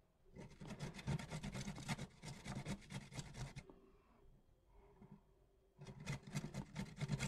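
A carrot grated by hand on a flat stainless-steel grater: quick rasping strokes in two runs, with a pause of about two seconds between them.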